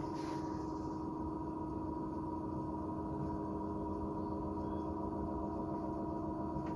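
Electric potter's wheel motor humming steadily as the wheel spins, a constant tone that does not change in pitch.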